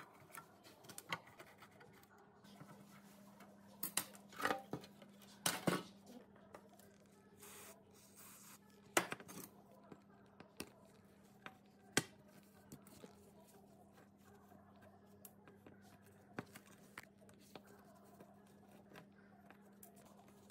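Screwdriver working rusty screws loose on an old gas stove's steel base and small valve fitting: scattered metal clicks, scrapes and taps at irregular moments, with the loudest around a third of the way in.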